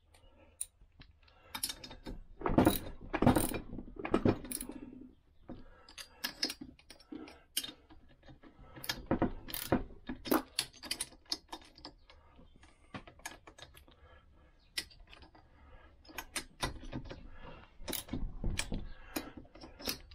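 Socket ratchet clicking in irregular runs of quick clicks as it runs down the cylinder head nuts, with metal clinks of the socket and tools between.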